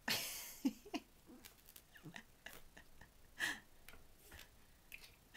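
A domestic cat making a few short grunts and chirps while it plays. A brief rustle of a hand stroking its fur comes at the start.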